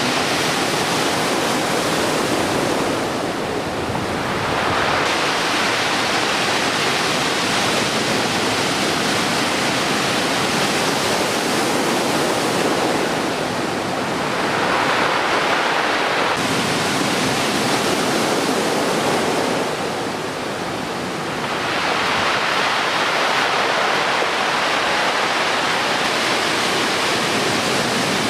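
Heavy storm surf: large typhoon waves closing out, a continuous rush of breaking whitewater that eases briefly twice and swells again as new waves break.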